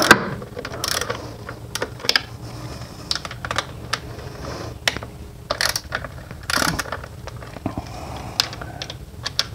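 Ratchet wrench with a socket on an extension working the 8 mm intake plenum bolts: irregular ratchet clicks and metal clinks of the tool on the bolts, the loudest just at the start.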